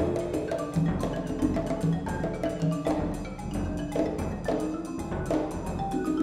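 Percussion quartet playing: quick marimba notes over hand-struck congas, in a busy, steady rhythm.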